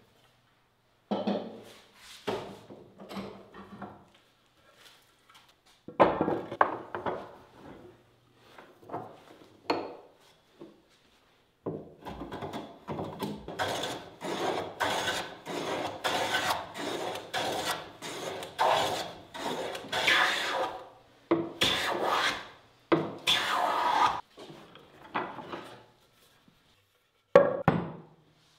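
Hand tool scraping across a wooden seat blank in quick repeated strokes: a few scattered strokes at first, then a steady run of rapid strokes lasting about twelve seconds, and a sharp knock near the end.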